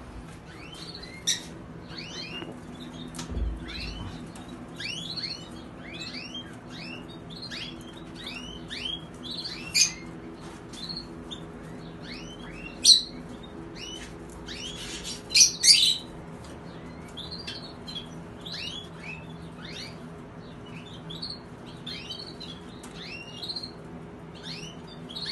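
Many caged canaries chirping and calling at once, a dense run of short chirps with a few louder, sharper calls from birds close by.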